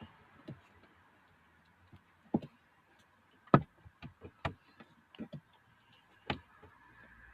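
Irregular sharp clicks and knocks of tools and hard plastic dashboard parts being handled and worked loose, the loudest about three and a half seconds in.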